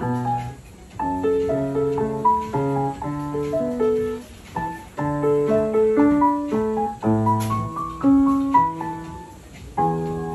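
Piano music: a melody of short notes over low chords, with brief lulls about halfway through and near the end.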